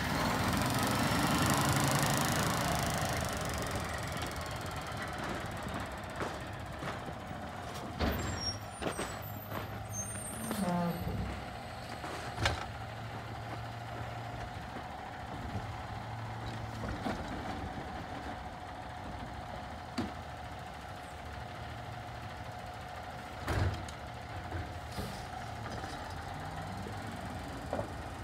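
Automated side-loading garbage truck working at the curb: the diesel engine runs with a steady whine, after a rush of hiss near the start. Several sharp bangs come as the arm lifts and empties carts.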